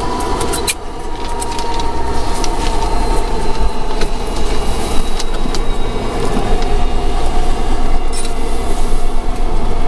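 Antonov An-26's Ivchenko AI-24 turboprop winding down after shutdown: a thin whine falls slowly in pitch over a steady low rumble, with scattered sharp clicks.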